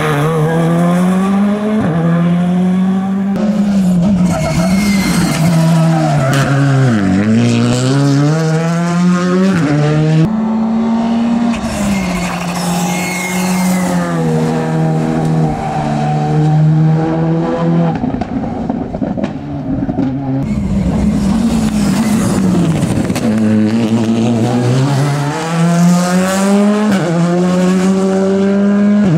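Rally cars driven flat out through tight corners, one after another: engines revving high and dropping sharply through gear changes, with tyre squeal.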